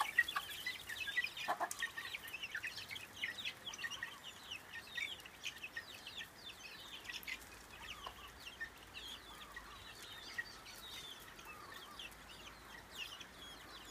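Chicks peeping continuously in many short, high chirps that dip in pitch, with an occasional lower cluck from the mother hen.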